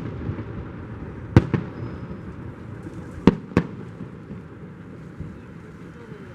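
Fireworks salute going off: a sharp bang about a second in, then two more in quick succession about halfway through, over a steady background hiss.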